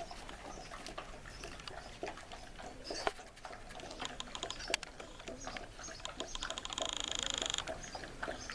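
Dogs eating from their plates, with irregular crunching, smacking and licking clicks as they chew. About seven seconds in, a brief, rapid, high-pitched trill sounds over the chewing.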